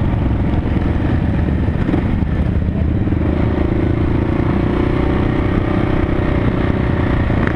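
Motorcycle engine running steadily at road speed, heard from on the bike itself, over a constant rush of wind and road noise.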